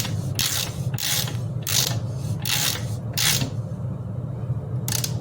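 Ratcheting strokes, about two a second, while the bicycle's crankset and chainring are being worked on. They stop partway through and come once more near the end, over a steady low hum.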